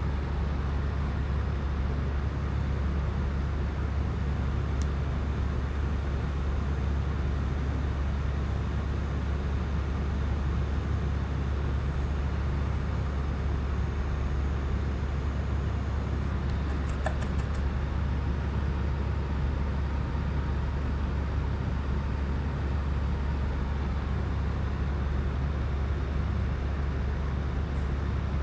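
Steady low hum with an even hiss over it, with a short cluster of faint clicks a little past the middle.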